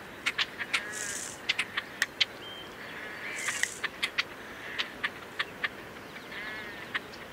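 Birds calling in a reedbed marsh: a scatter of sharp, irregular ticking calls with a few short, harsh nasal calls among them, and two brief high hissing sounds about one and three and a half seconds in.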